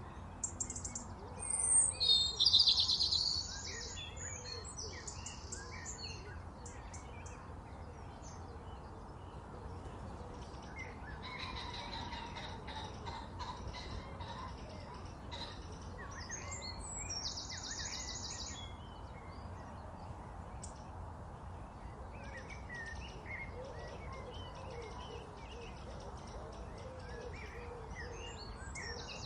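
Several birds chirping and calling, with a loud run of high chirps about two seconds in, over a steady low background rumble.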